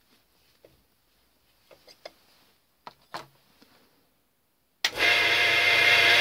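A few light metal clicks and taps from a spanner on a milling machine's collet chuck nut. About five seconds in, the mill spindle starts suddenly and runs steadily, spinning a gear cutter on its arbor.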